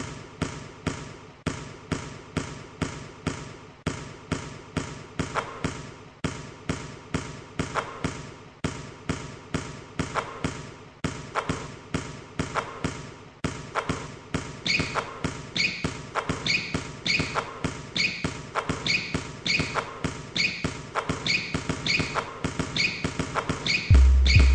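Basketballs thudding in quick succession, about three a second, against the backboard, rim and return ramp of an arcade basketball machine. About 15 seconds in, a regularly repeating higher-pitched electronic sound joins the thuds.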